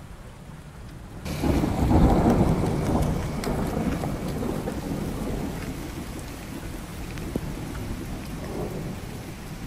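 Thunder rolling in suddenly about a second in, loudest at first and slowly fading, over steady rain.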